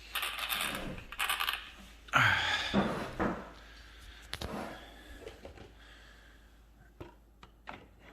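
Hard plastic and metal parts of an RC truck being handled: a quick run of clatter and clicks, a louder scrape about two seconds in, then a few faint taps.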